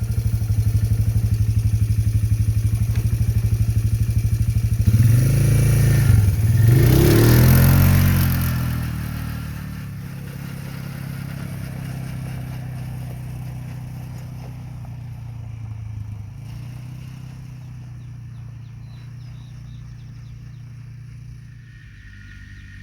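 Polaris Trail Boss 325 ATV's single-cylinder four-stroke engine idling with a steady, even beat, then revving up and pulling away hard about five seconds in for a 0-to-30 mph acceleration run. After about nine seconds the sound drops to a quieter, steady engine note.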